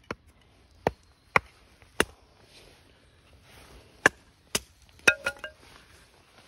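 Hatchet chopping a stick of kindling stood on a stone, in about nine sharp chops. Four come at roughly half-second intervals, then after a pause of about two seconds two more and a quick run of three near the end, one of them ringing briefly.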